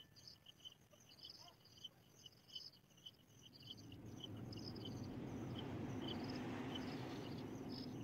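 Insects chirping in a fast, pulsing rhythm, several high chirps a second, while a rushing noise swells from about halfway through and becomes the loudest sound.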